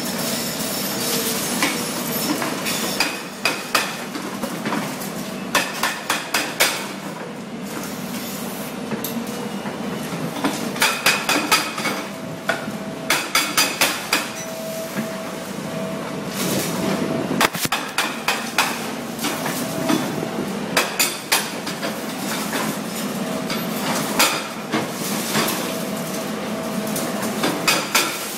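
CMB CM 650 hydraulic breaker on an excavator boom hammering concrete in short bursts of rapid blows, several times over, with excavator engines running steadily underneath.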